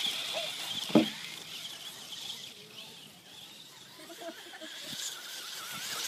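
High-pitched whine of an electric remote-control car's motor running at speed, fading over the first couple of seconds as the car pulls away. A brief sharp, loud sound comes about a second in.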